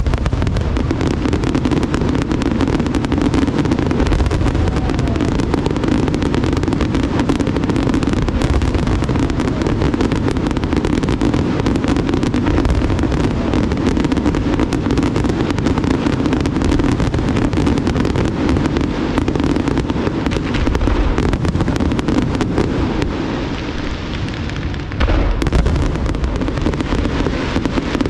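Large aerial fireworks display: a dense, unbroken barrage of shells bursting, many cracks and booms running together over a rumble. A short lull comes near the end, then a fresh volley.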